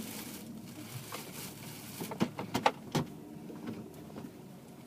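Clothing being handled: rustling as a top is pulled out and held up, with a few sharp crinkling clicks about two to three seconds in.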